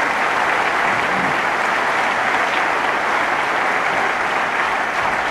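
Large audience applauding, steady continuous clapping.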